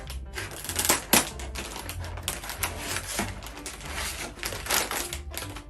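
Plastic toy packaging being cut with scissors and pulled open: irregular crackling and sharp clicks of stiff plastic, the sharpest about a second in.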